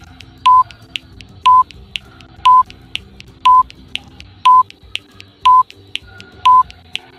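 Countdown timer sound effect ticking down the seconds: a short, loud beep at one steady pitch once a second, with a sharp tick between each beep.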